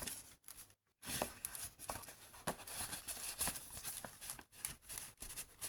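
Paper and card rustling, with small scattered clicks and scrapes, as the pages and a tucked-in journaling card of a handmade junk journal are handled.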